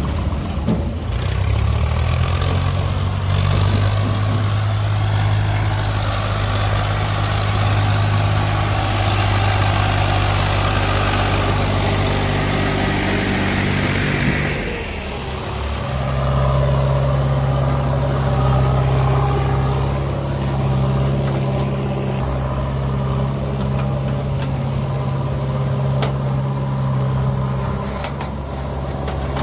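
Heavy diesel engine running steadily. Its note changes about a second in and again about halfway through.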